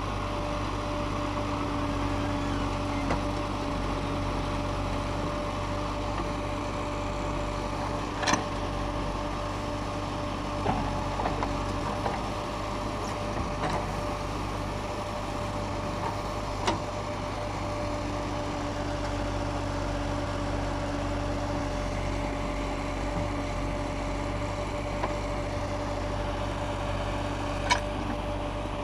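JCB 3DX Xpert backhoe loader's diesel engine running steadily with a steady hum, and a few sharp knocks, the loudest about eight seconds in and near the end.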